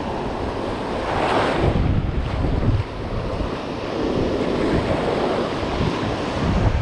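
Surf washing up a sandy beach, with wind buffeting the microphone; a louder rush swells about a second in.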